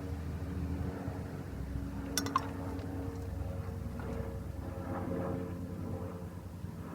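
Steady low mechanical hum, with a brief metallic clink about two seconds in.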